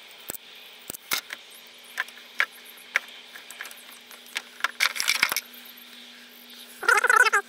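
Sharp clicks and snaps of wire strippers and side cutters working the thin wires of a battery-management wiring loom, with a short rustling clatter of wire about five seconds in. Near the end comes a louder pitched squeak that wavers up and down.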